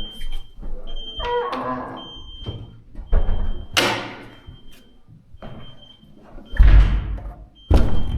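Intruder alarm keypad or sounder beeping a high, steady note about once a second: the building's alarm has been set off and is counting down or warning after wrong codes were entered. Several loud thuds break in, the loudest near the end.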